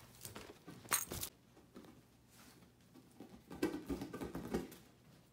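A capuchin monkey scrambling on a large inflatable ball: patter and soft thumps of hands and feet with rubbing on the vinyl. A sharp noise about a second in is the loudest, and a cluster of knocks and scuffles follows in the middle.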